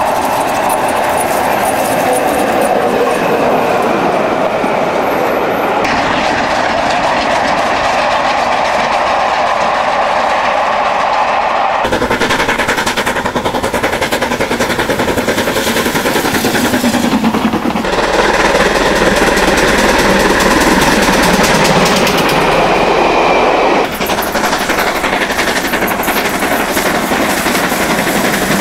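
A run of different mainline steam locomotives at work hauling passenger trains, with rapid exhaust beats and rail clatter. The sound changes abruptly about every six seconds as one locomotive's clip cuts to the next.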